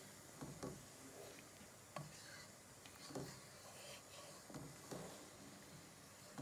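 Faint scraping and light knocks of a wooden spoon stirring beef mince, peas and carrots in a frying pan, a few short strokes spread through.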